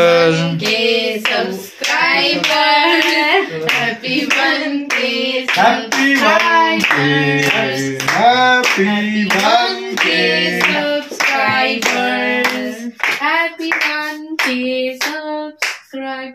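A small group singing together while clapping their hands in time.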